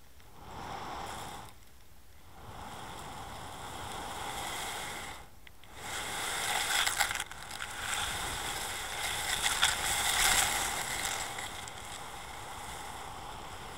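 Muffled scraping and crunching of a weighted camera and lead dragging over shell gravel on the seabed, heard through the camera's waterproof housing. It grows louder and grittier from about six seconds in, with crackly peaks, then eases near the end.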